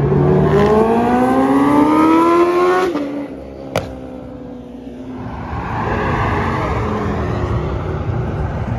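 A performance car's engine accelerating hard, its pitch climbing steadily for about three seconds before cutting off. A single sharp click follows, then the rushing sound of another car coming up and passing.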